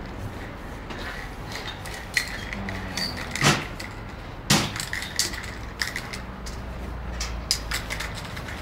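Scattered knocks and clatter of objects being handled, with two louder knocks about three and a half and four and a half seconds in, over a steady low hum.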